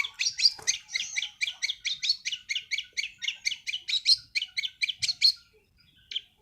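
Young long-tailed shrike (cendet) singing a fast, even run of harsh chattering notes, about six a second, that breaks off about five seconds in.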